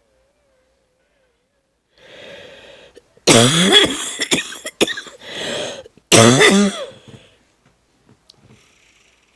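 A woman coughing with a hoarse, wheezy chest, her voice lost. A rasping breath in about two seconds in, then two loud coughing fits about three seconds apart, the first breaking into several shorter coughs, then faint breathing.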